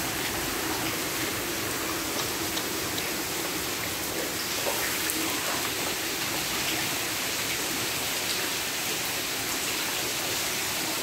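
Heavy rain pouring down steadily in an intense downpour, with scattered drips ticking on nearby surfaces.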